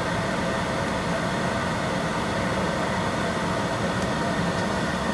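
A 2013 Ford Explorer's climate-control blower pushing air through the dash vents as a steady rush, with the air conditioning switched on and blowing cold.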